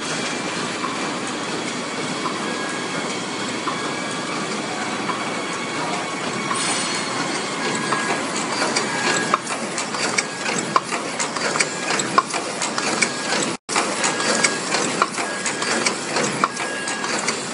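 Paper cup making machine running: a dense, steady mechanical clatter of its forming stage, with sharp clicks that grow louder about halfway through and a short, higher tone that repeats about every 0.7 s with the machine's cycle. The sound cuts out for an instant about two-thirds of the way in.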